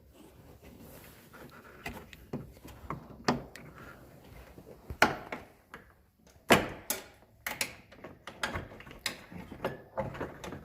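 Irregular clicks and knocks of small metal and plastic parts being worked inside a pickup truck door as the handle linkage rods and their retaining clips are lined up, with two louder knocks about five and six and a half seconds in.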